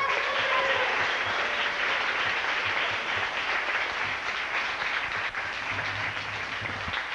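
Audience applauding steadily, with a voice or two calling out in the first second.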